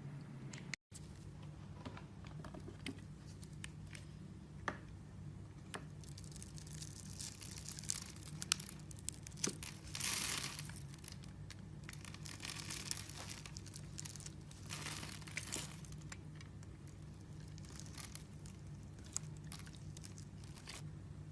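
Bar soap being cut and scraped with a blade, giving crisp crunching and crumbling sounds with scattered sharp clicks. The crunching is densest midway, loudest about ten seconds in, over a steady low hum. It cuts out briefly about a second in.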